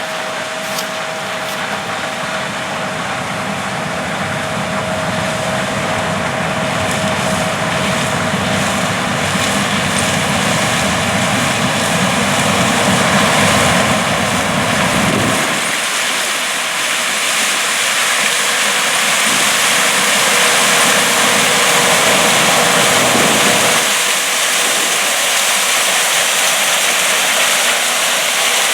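John Deere S670 combine harvesters running as they harvest corn, a steady, loud machine noise that grows gradually louder. The deepest part of the sound drops away abruptly about halfway through and again near the end.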